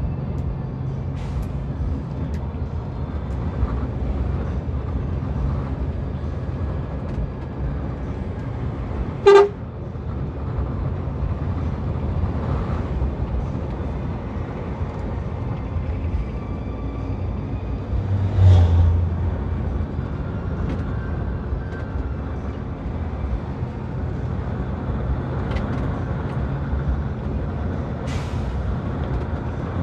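Steady engine and road rumble inside a Mercedes-Benz coach on the move. About nine seconds in a short, sharp horn toot sounds, the loudest moment. Around eighteen seconds a deeper, lower blast lasts about a second.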